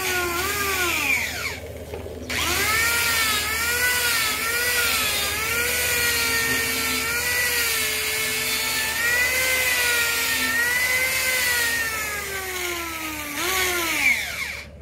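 A handheld electric power tool running, its motor pitch dipping and rising as it is loaded. It spins down and stops about two seconds in, starts again at once, and spins down with a falling whine near the end.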